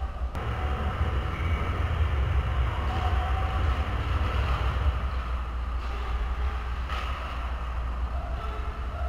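Ice hockey rink ambience: a steady low rumble under faint, distant calls and the light clatter of play at the far end of the ice.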